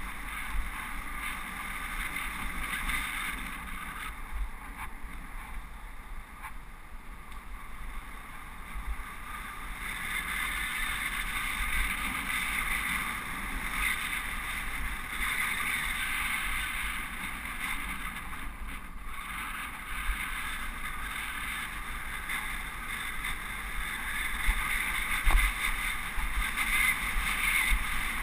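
Wind and road noise from riding a bicycle on rough asphalt, picked up by a helmet-mounted GoPro: wind buffeting the microphone over a steady rushing hiss, growing somewhat louder about a third of the way in.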